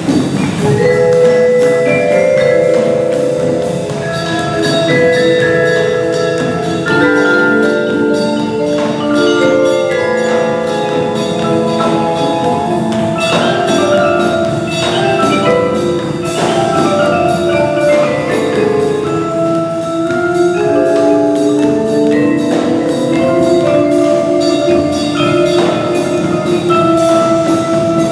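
Percussion ensemble playing a piece of music, with many ringing pitched notes from mallet instruments over other percussion.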